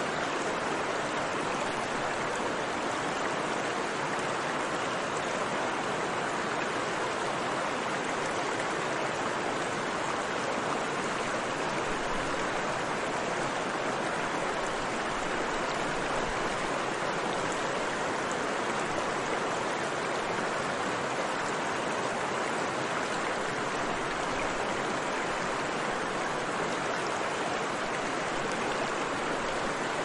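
Mountain river flowing: a steady, unbroken rush of water with no pauses or changes.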